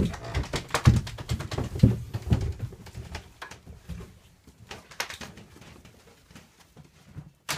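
Footsteps thumping across the floor about twice a second, with scattered light clicks and taps, fading after a few seconds; one sharp click near the end.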